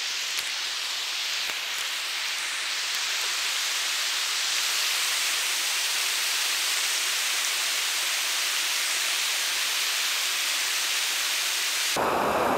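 Steady hiss of stream water rushing over small rocky cascades, heard close. It grows a little louder about four seconds in and cuts off sharply near the end.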